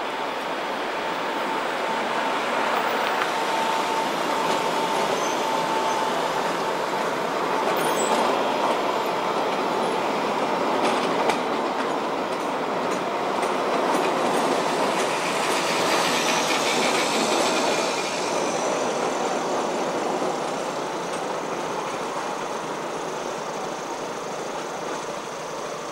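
Low-floor electric tram pulling away and running past close by on its track, with a steady whine in the first few seconds and wheel-on-rail noise with a few clicks. Road traffic passes in the latter part.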